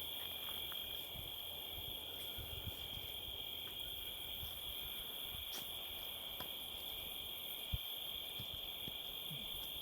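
Steady night chorus of crickets, a continuous high trill that never breaks, over an uneven low rumble of wind on the microphone. A single brief knock about eight seconds in.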